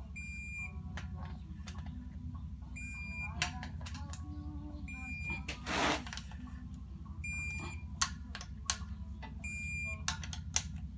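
A short, high electronic beep repeating about every two seconds, five times. Under it runs a steady low hum, with scattered tool clicks and one louder rustling burst about halfway through.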